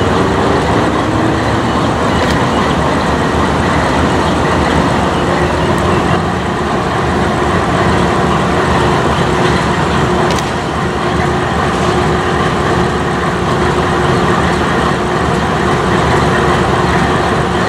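GE C44-9W diesel locomotive running steadily while standing, a loud, even rumble with a faint steady hum through the middle.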